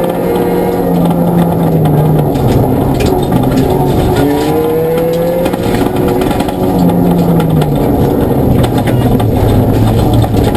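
Ford Fiesta ST rally car's engine heard from inside the cabin, running hard on a gravel stage, its pitch climbing and falling back several times, over a steady rush of road noise.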